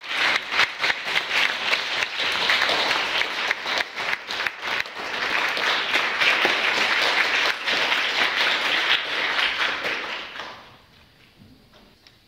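Audience applauding, dense clapping that dies away about ten and a half seconds in.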